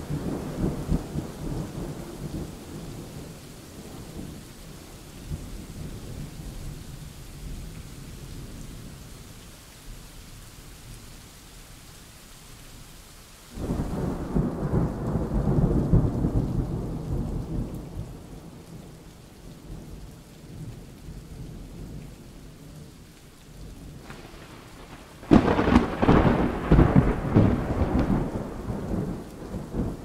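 Thunderstorm: steady rain with rolling thunder. A rumble fades away over the first dozen seconds, a new roll of thunder breaks in suddenly just before the middle and dies down, and a louder, crackling clap of thunder hits near the end and rumbles on.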